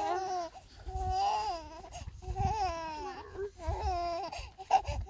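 A young child crying, a run of high-pitched, wavering wails, each a second or less long, with a short sharp knock near the end.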